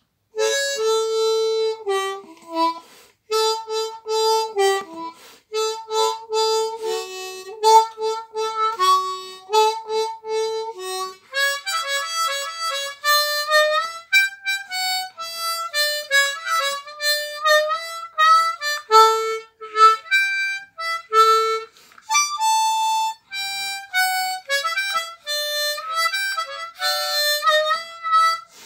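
Ten-hole diatonic harmonica in D playing a fast blues tune solo: a quick run of short notes in the low holes, moving up to higher notes about eleven seconds in.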